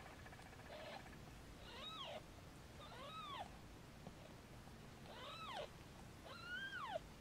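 Newborn kitten mewing four times: short, high cries that rise and fall in pitch, the last the loudest.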